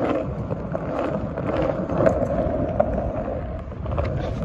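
Skateboard wheels rolling over a concrete sidewalk: a steady rumble with a few sharp clicks.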